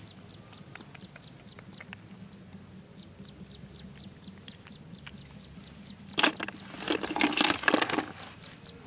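River snails' shells knocking and clattering as they are dropped into a basin: one sharp knock about six seconds in, then about a second of rattling clicks. Under it, a high chirp repeats steadily about three times a second.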